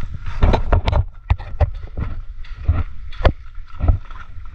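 Footsteps crunching and knocking over loose rocks and pebbles, about two uneven steps a second.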